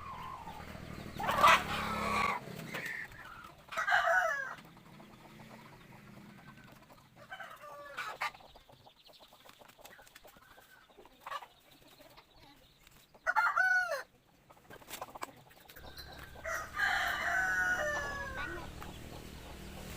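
Junglefowl giving short crowing and clucking calls, about five in all, with the loudest about 13 seconds in. A low steady hum sits under the first two seconds and the last four.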